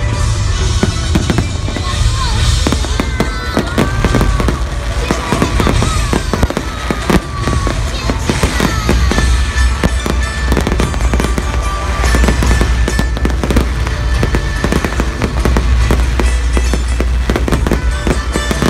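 Fireworks display: shells bang and crackle in quick succession, over loud music with a heavy, steady bass.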